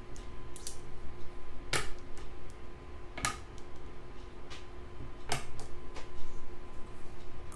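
Go stones clacking onto the board one move at a time: three sharp clacks a second and a half to two seconds apart, with a couple of fainter clicks near the start, over a faint steady hum.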